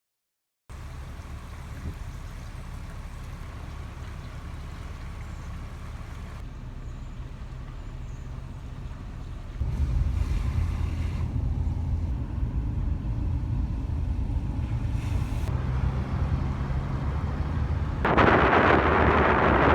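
Wind rumbling on the microphone over the hiss of rough water, in several cut-together takes. It gets louder about ten seconds in, with a loud spell of hiss near the end.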